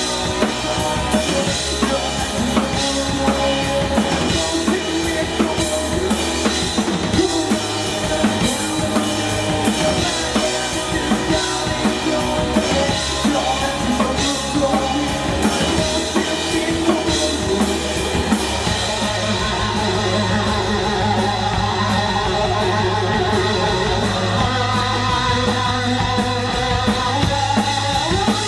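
Live rock band music with the drum kit prominent: kick drum, snare and cymbals driving the beat. About two-thirds of the way through, the cymbals drop away and the music settles into a steadier, sustained passage with a wavering guitar line.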